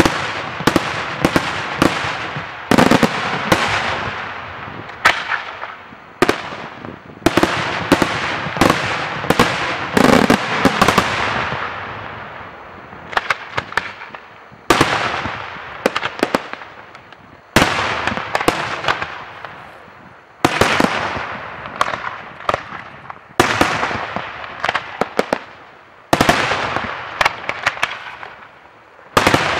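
Daytime aerial fireworks shells bursting in a steady series of loud bangs, one every second or two, each trailing off in a long echo, with clusters of quick crackling reports among them.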